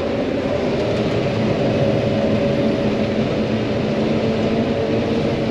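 John Deere 9500 combine running steadily while harvesting corn, heard from inside the cab: an even engine and machinery hum with a few held tones.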